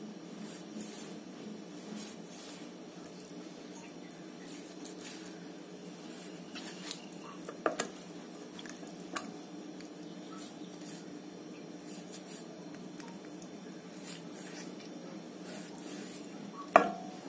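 Kitchen knife scoring raw chicken leg pieces in an enamel bowl: faint cutting and handling of the meat, with a few light clicks from the middle on and one louder sharp knock near the end, over a steady low hum.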